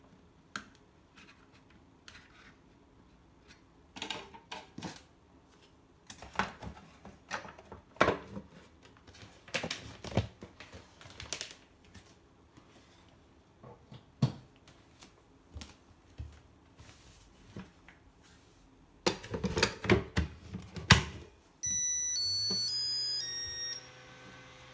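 Scattered plastic clicks and knocks as a Makita DC18RF battery charger is handled, then, near the end, the charger plays a short electronic jingle of beeping notes as it is powered up, and a steady hum from its cooling fan begins.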